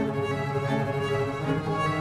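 Background music on bowed strings, violin over cello, playing sustained notes.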